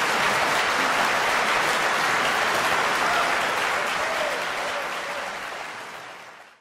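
Audience applauding with dense, steady clapping that fades away near the end.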